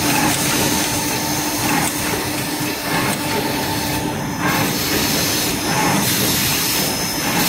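Ecoo LS1246D automatic rigid box making machine running: a steady mechanical clatter and hiss from its rollers and feed, with a constant hum under it. In the second half a brief change repeats about every one and a half seconds, as the machine cycles.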